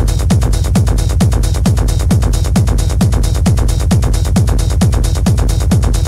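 Electronic dance music from a DJ mix: a steady kick drum about twice a second, each kick dropping in pitch, under fast hi-hats.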